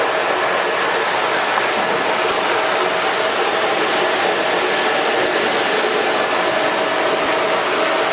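Electric meat mincer running steadily: a constant whir with a steady whine through it.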